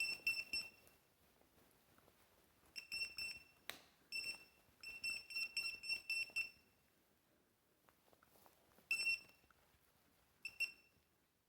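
Electronic device beeping a high-pitched tone in rapid, stuttering bursts of uneven length with silent gaps between them. A single sharp click comes about four seconds in.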